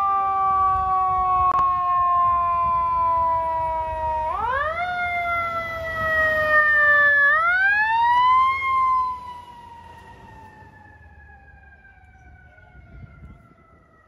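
FDNY fire engine's siren. Its pitch sinks slowly, climbs quickly twice, then slides down in a long fade that grows much quieter.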